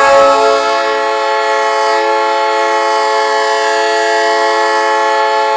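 Hockey arena goal horn sounding one long, steady, unbroken blast.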